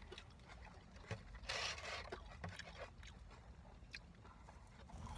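A person eating fast food: soft scrapes and rustles as the food is handled, the loudest a brief rustle about one and a half seconds in, with a few small clicks.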